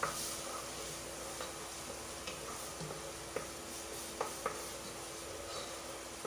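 Wooden spoon stirring a thick onion, garlic and ginger paste that is frying in oil in a pot, with a steady faint sizzle and several sharp knocks of the spoon against the pot.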